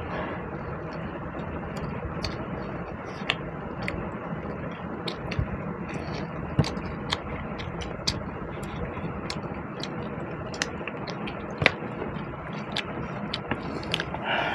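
Eating sounds: scattered small clicks and scrapes as food is handled and chewed, over a steady background hum.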